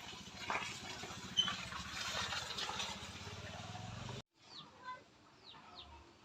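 A stretch of rustling, clicking noise stops abruptly about four seconds in. Small birds then give a few short, high, falling chirps.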